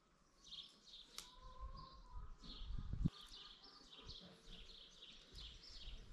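Small birds chirping repeatedly, with a low thump about three seconds in.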